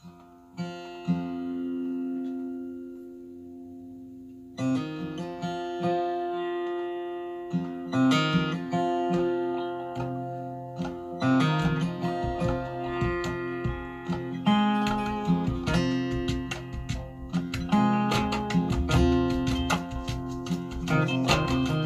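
Recorded music playing over a home hi-fi system: a guitar piece that opens with a few held notes, then goes into fuller plucked playing from about four seconds in.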